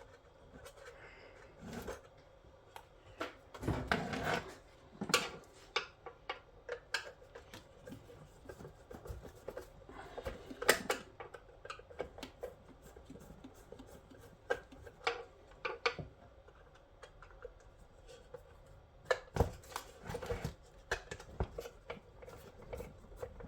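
Hand tools and loose parts clattering on a TV's plastic and steel casing as it is dismantled: irregular clicks, taps and rattles, with a few louder knocks scattered through.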